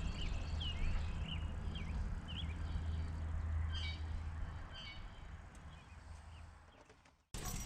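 Small birds chirping over a low steady outdoor rumble, the whole fading out about seven seconds in.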